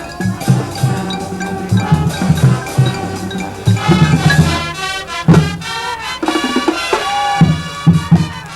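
A high school marching band playing a Latin jazz arrangement: brass and woodwind chords over a steady pattern of bass drum and drumline hits.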